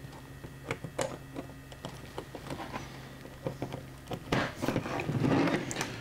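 Anderson Powerpole connector and plastic case being handled and pushed together: scattered light clicks, then a louder stretch of plastic rubbing and clicking about four seconds in.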